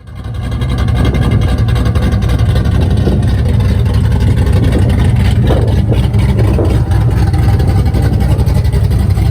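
C5 Corvette's LS-series V8, freshly rebuilt after a piston swap, running with a loud, steady low rumble. It builds up over the first second.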